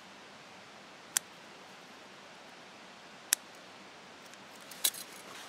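Scissors snipping through a thin leather strap: two sharp single snips about two seconds apart, then a few quicker clicks near the end.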